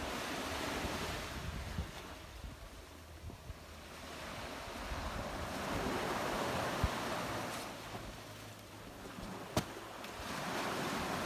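Small waves breaking on a sandy beach and washing back, the surf swelling and fading every four or five seconds, with wind buffeting the microphone. Two sharp clicks stand out briefly, one past the middle and one near the end.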